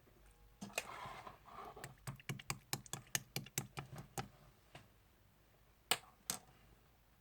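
Clear slime being pressed and squished by hand: a short wet squish about a second in, then a quick run of crisp popping clicks, about four a second, and two more clicks near the end.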